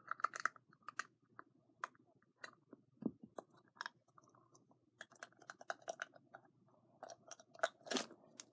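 Plastic crackling and clicking in irregular runs as a lid is worked at by hand, with a louder cluster of crackles near the end.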